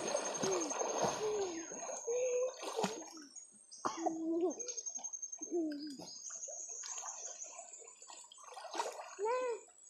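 River water splashing and sloshing as people move and swim in it, busiest in the first few seconds, with a child's short calls and voices over it.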